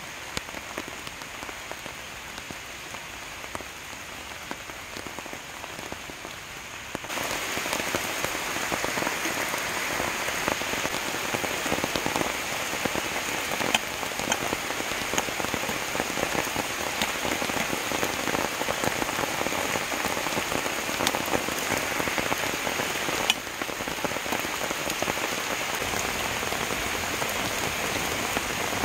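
Steady rain falling on a river and the leaves around it, a dense even patter that gets louder about seven seconds in.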